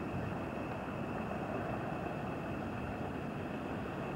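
Steady, low engine drone of a passing inland motor cargo ship.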